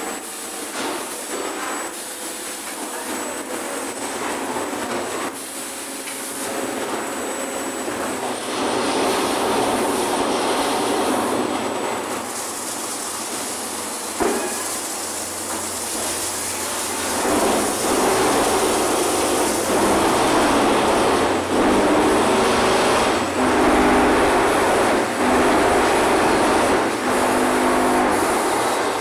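Concrete block-making plant machinery running, the aggregate hopper's belt conveyor and nearby machines giving a continuous loud mechanical rumble and rattle. It grows louder after about eight seconds, with one sharp knock about halfway and a run of evenly repeated pulses near the end.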